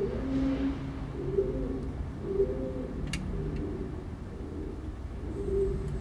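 Pigeons cooing inside a mausoleum: low, moaning coos repeated one after another over the first three seconds, pausing, then starting again near the end.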